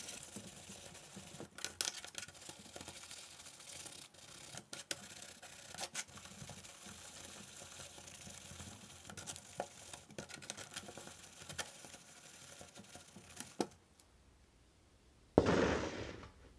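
A brush scrubbing greasy metal drill gears in cleaning liquid: steady scratchy brushing with small clicks as the parts knock about. Near the end, after a short quiet, a sudden loud noise about a second long as a plastic tub is handled.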